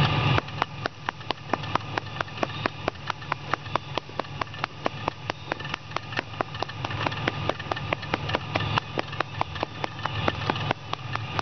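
A fast, regular train of sharp clicks or ticks, about four a second, running steadily for about ten seconds.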